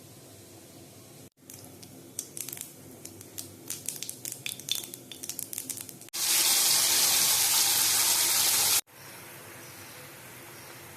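A run of light clinks and taps of kitchen utensils, then a loud steady rush of running water for about two and a half seconds that stops abruptly.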